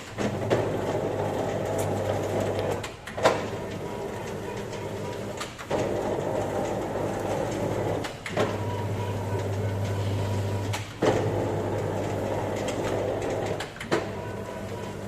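Electric standing dough sheeter running, its motor humming steadily as the conveyor belts carry dough through the rollers. A sharp click comes every two and a half to three seconds, each followed by a change in the motor sound, as the machine switches the belts' direction.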